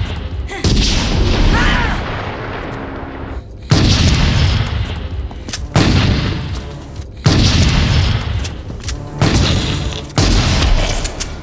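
Film-soundtrack shotgun blasts in a hallway: about six heavy shots one to three seconds apart, each with a long echoing tail, over a tense orchestral score.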